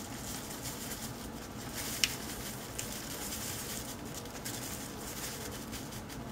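Faint rustle and patter of dry breading mix poured from a paper packet into a measuring cup, with one sharp tick about two seconds in.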